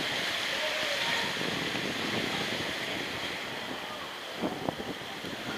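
Water and air rushing past a camera carried by a rider sliding down a water slide: a steady hiss of water on the slide with wind buffeting the microphone, and a few short knocks about four and a half seconds in.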